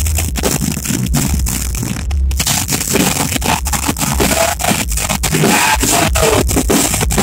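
Rock band playing live, loud and heavily distorted by a phone's microphone, with regular drum hits; a lead vocal comes in about three seconds in.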